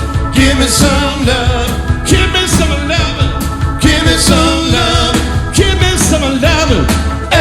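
Live rock band music with a Hammond B3 organ and a wavering, bending lead melody over a steady low end.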